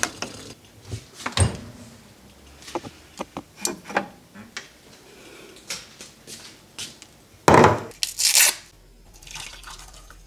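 Kitchen handling sounds: light clicks and knocks as a cooker's control knob is turned and a ceramic mug and small steel saucepan are picked up and set down, with a louder clatter about seven and a half seconds in.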